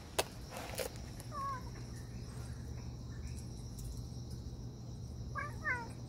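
Steady high trilling of insects, with a sharp click a moment in and short chirping calls about a second and a half in and again near the end.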